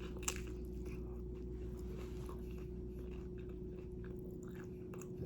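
A person chewing a mouthful of turkey wrap, soft, irregular mouth clicks close to the microphone, over a steady low electrical hum.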